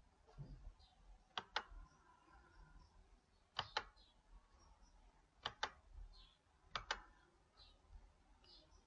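Computer mouse clicked four times, each a quick pair of sharp clicks, over a faint room hum.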